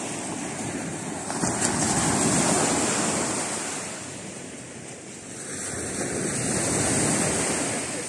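Baltic Sea surf washing onto a sandy beach, the rush of the waves swelling and easing twice.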